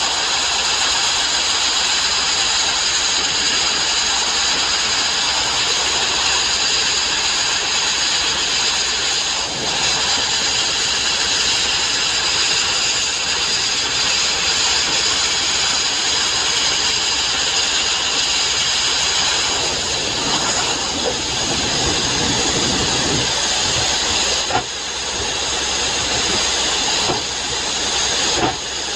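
Sandblasting: the abrasive blast nozzle gives a loud, steady hiss, with a couple of brief dips near the end.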